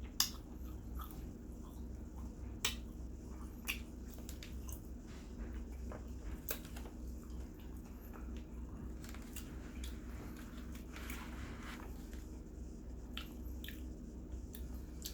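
A person eating a roasted chicken, chewing and pulling the meat apart by hand, with scattered sharp clicks and a brief rustling patch about two-thirds of the way in, over a steady low hum.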